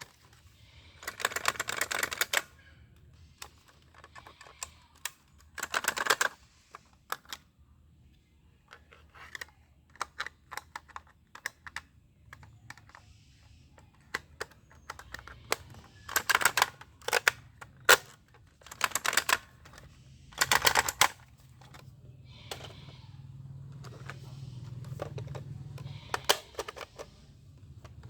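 Plastic toy airsoft pistol being handled, giving bursts of rapid clicking and rattling about a second long, with scattered single clicks between them.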